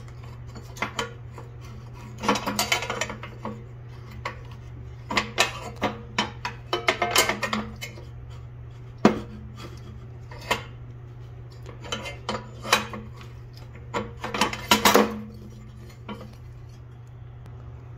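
Steel seat-suspension parts being handled: a steel piece worked onto its shaft by hand, giving irregular metal clinks and scrapes in short clusters, with one sharp click about halfway.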